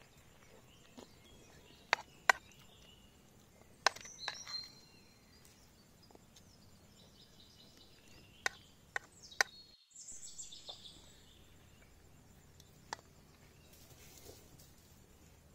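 Forest ambience: birds chirping in short phrases twice, over a faint steady high tone, with several sharp clicks that are the loudest sounds.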